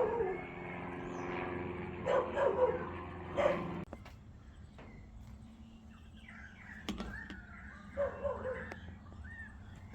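An animal whining in short, bending cries, once about two seconds in and again near the end. A steady hum stops suddenly about four seconds in, and there is a single sharp click about seven seconds in.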